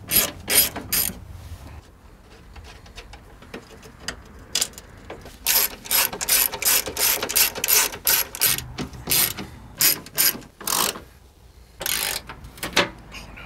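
A 3/8-inch-drive hand ratchet with an extension clicking through short back-and-forth strokes as it tightens fender bolts, in rapid runs of clicks with short pauses between.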